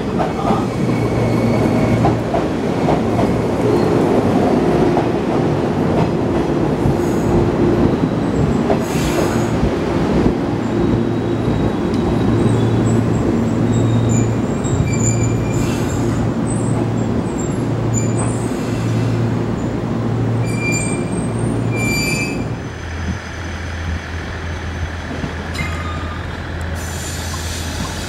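Electric multiple unit train running slowly through the station, with a heavy rumble, a pulsing low hum and short high-pitched wheel squeals. About three quarters of the way through, the sound changes to a steadier low hum.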